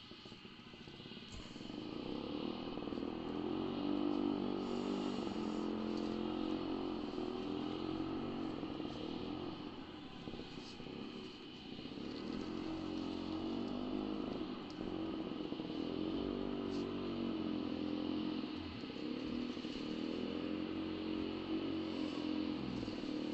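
Motorcycle engine running under load, its revs rising and falling unevenly. It grows louder about two seconds in and eases off briefly near the middle before picking up again.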